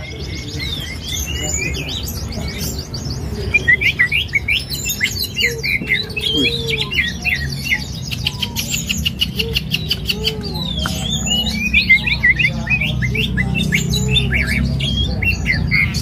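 Caged songbirds singing hard, among them an oriental magpie-robin (kacer): rapid runs of chirps, whistles and fast trills that keep going without a break, over a steady low background hum.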